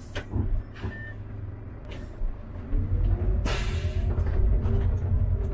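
Diesel city bus engine running, then getting louder with rising pitch as the bus pulls away about halfway through. A sharp hiss of compressed air comes over the engine at about the same time.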